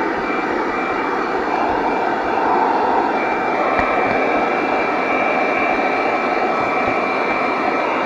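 Piranha PVC-4004 12-volt handheld car vacuum running steadily: a high motor whine over rushing air as it sucks up grit and dust from the floor carpet.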